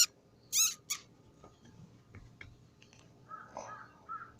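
Two short high-pitched calls in the first second, then crows cawing repeatedly from about three seconds in.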